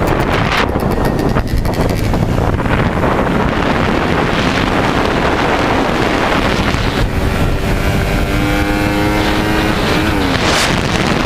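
Wind buffeting the microphone of an onboard camera on a small race motorcycle, with the bike's engine under it. About seven seconds in the engine note comes through as a steady tone, then falls in pitch near the end.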